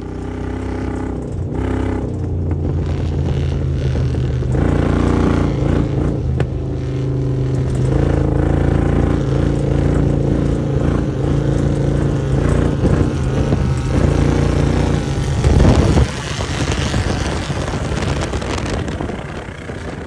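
Vehicle engine running loud and steady with a deep note, its revs shifting now and then, with a brief loud rush about three-quarters of the way through.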